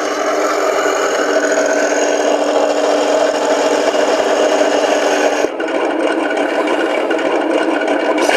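Simulated tank engine running from the speaker of a 1:16 RC tank's IBU 3 sound unit, mixed with the whir and rattle of its tracks and gearbox as it drives. The engine note changes abruptly about five and a half seconds in.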